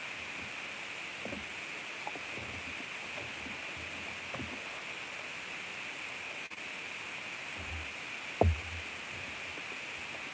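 Steady microphone hiss with a few faint mouth and chewing sounds as cake is eaten, and one short knock about eight and a half seconds in.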